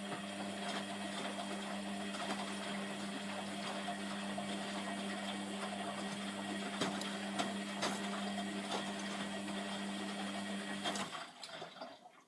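Hotpoint WMF720P washing machine running with a steady, even-pitched hum and light crackling and ticking over it. It cuts off suddenly about eleven seconds in, followed by a few faint clicks.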